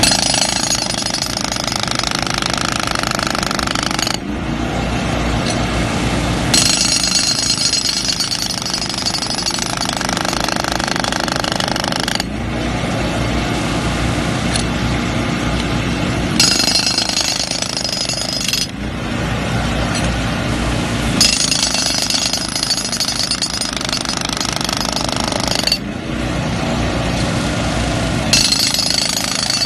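WIPIN hand-held hydraulic breaker hammering into concrete pavement in a continuous fast run of blows. The tone of the hammering grows brighter and duller every few seconds but does not stop.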